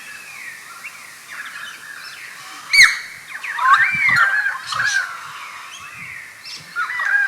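Pied currawong calling: bouts of rising and falling whistled, warbling notes, the fullest about four seconds in and another starting near the end. A single sharp, loud sound comes just before the first bout.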